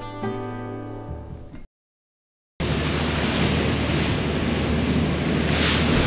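Guitar music ends about one and a half seconds in, a second of silence follows, then a steady rushing of wind and water sets in with a low drone underneath.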